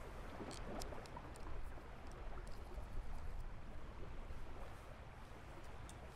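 Steady low rumble of background ambience in a large open hall, with a few light clicks in the first half.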